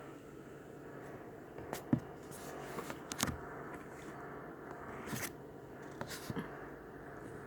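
A handful of short scrapes and crackles, about six, over a steady low background hum.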